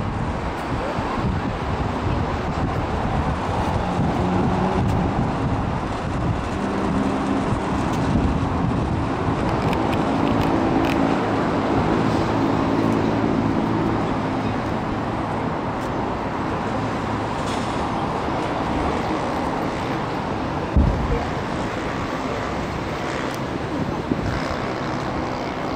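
Steady outdoor din of a watching crowd with voices heard through the middle, and one sharp bang of an aerial firework shell bursting about 21 seconds in.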